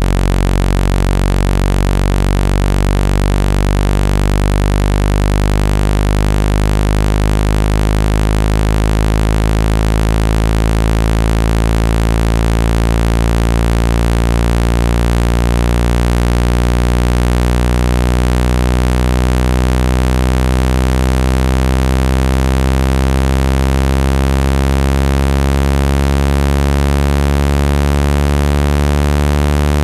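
Low, buzzy synthesized tone of a speaker-cleaning sound file, held steady and slowly rising in pitch. It is meant to vibrate water and dust out of a phone speaker.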